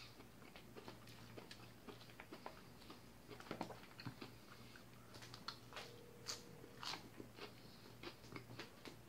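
Faint sounds of eating salad: crunchy chewing of leafy greens and a metal fork clicking and scraping in a clear plastic takeout container, as a scatter of small irregular ticks and crunches.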